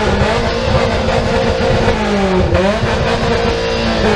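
Car engine revved hard through a loud competition exhaust and held at high revs, dropping briefly about halfway through and climbing straight back up.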